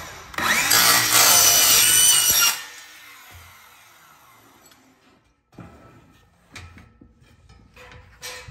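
Cordless DeWalt miter saw cutting through a metal railing spindle: a loud whining cut lasting about two seconds, then the blade winding down. A few light knocks and clanks follow as the railing is shifted on the saw.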